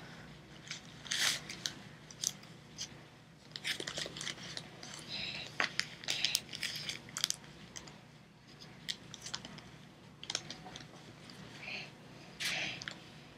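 Irregular crinkling and rustling of a doll and a sanitary pad being handled by a toddler, with scattered short crackles coming on and off.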